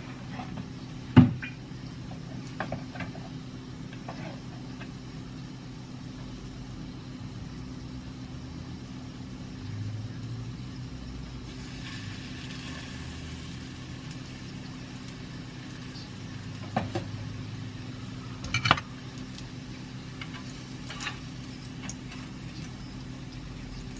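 A steady low mechanical hum with occasional sharp clinks and knocks of a metal utensil in a frying pan. The loudest knock comes about a second in, and more come around 17 and 19 seconds.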